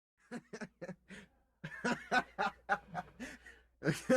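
A person laughing quietly, a run of short chuckling pulses about four a second, with a brief pause after the first second.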